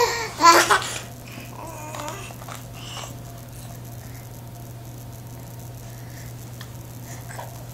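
A toddler's brief vocal sound, babbling or laughing, in the first second, then a quiet room with a steady low hum and a few faint soft sounds.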